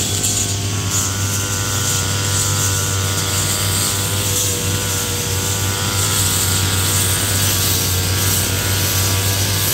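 Backpack brush cutter's small engine running steadily at high speed while its cutting head trims weeds and grass.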